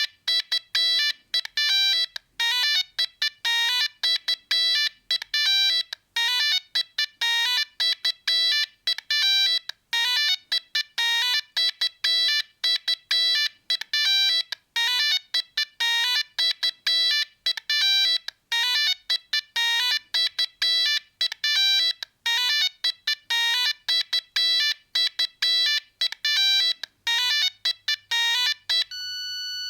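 Siemens C45 mobile phone playing an electronic ringtone: a quick melody of short beeping notes that repeats in phrases with brief pauses. Near the end it switches to a different ringtone with longer held notes.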